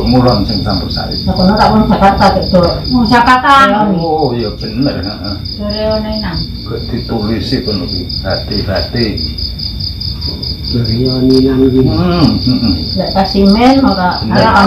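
Crickets chirping in a steady, high pulsing trill, with people talking over it.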